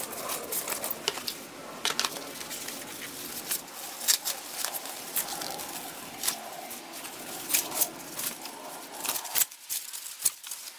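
Thin white protective packaging wrap crinkling and rustling as it is handled and pulled back from the door visors, with many sharp crackles. It goes briefly quieter near the end.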